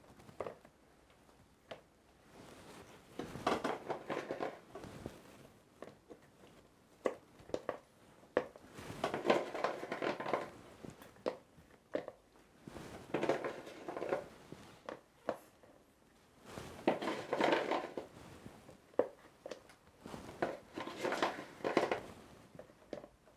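Fireworks stars being set by hand into a paper shell half of a large shakudama firework: scattered small clicks as the pellets knock against each other and the shell, with a bout of dry rustling and scraping every few seconds.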